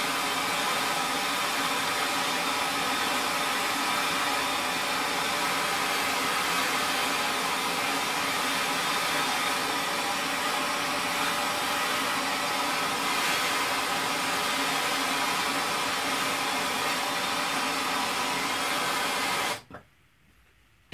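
MAP gas hand torch burning with a steady hiss, heating seized steel set screws in an aluminum locking pin ahead of a water quench. The flame is shut off suddenly near the end.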